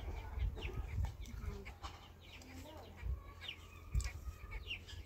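Chickens clucking, a run of short falling calls throughout, with a few low thuds, the loudest about three and four seconds in.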